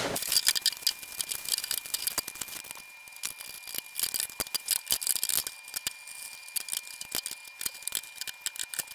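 Polymer and metal parts of a Tipton Ultra Gun Vise being unpacked and set down on a wooden workbench: a quick run of clicks, knocks and rattles, with packaging rustling during the first few seconds.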